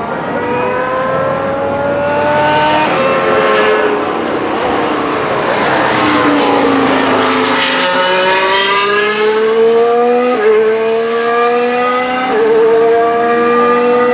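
A 2025 Formula One car's turbocharged 1.6-litre V6 hybrid engine at high revs. Its pitch falls as it slows about a third of the way in, then climbs hard through the gears, dropping back briefly at each upshift (about 3, 10.5 and 12 seconds in).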